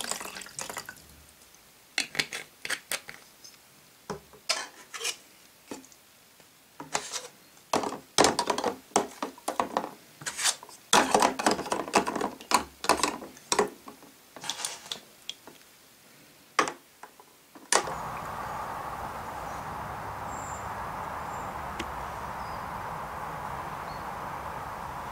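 Hard plastic toy parts clicking and knocking against a plastic tub as they are set down in a hydrogen peroxide bath, in irregular clusters of sharp taps. After about 18 seconds this gives way suddenly to a steady outdoor background hiss with a couple of faint high chirps.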